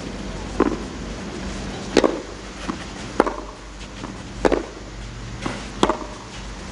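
Tennis ball struck back and forth with rackets in a baseline rally on a clay court: five sharp pops roughly one every 1.3 seconds, with a fainter knock between two of them, over a steady low crowd ambience.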